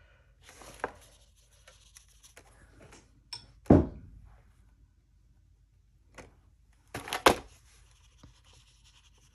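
A MeiLiang watercolour palette tin is set down on a sketchbook with one sharp knock a little under four seconds in, then knocks twice in quick succession about seven seconds in as it is shifted again. Between these, a brush scrubs faintly on the paint pans and the paper.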